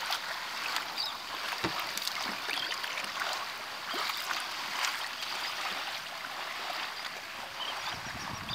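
Shallow water lapping and trickling along the hull of a small boat: a steady splashy hiss with scattered small drips and ticks.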